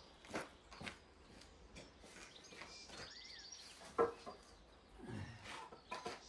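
Small birds chirping, with short quick trills and a single rising-and-falling call, over scattered knocks and clicks. The loudest is a sharp knock about four seconds in.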